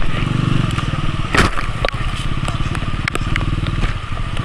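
Motorcycle engine running steadily in very heavy rain, with raindrops striking close by as many sharp, separate clicks.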